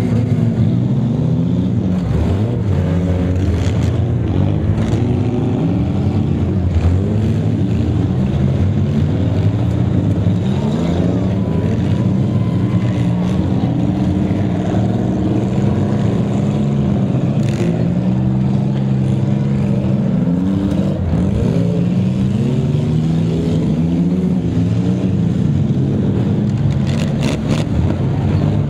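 Many six-cylinder demolition derby car engines running and revving at once, their pitches rising and falling over one another as the cars accelerate and reverse. A few sharp impacts of cars hitting each other, about two thirds of the way through and near the end.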